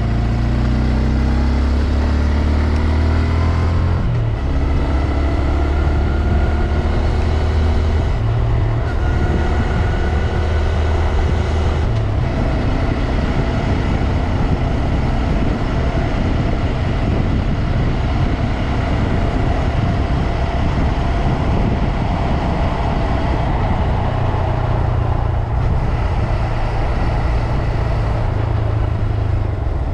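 Honda Grom's single-cylinder engine revving up through the gears, its pitch rising and dropping back at each upshift about 4, 8 and 12 seconds in. It then runs steadily at speed, mostly drowned by wind rush.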